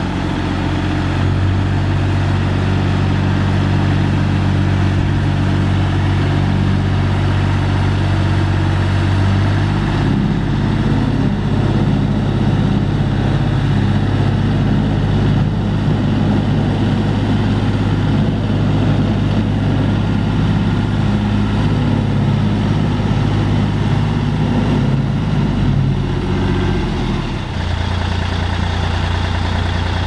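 Diesel engine of a small 3-ton road roller running steadily as the roller drives. Its note shifts about ten seconds in and again shortly before the end.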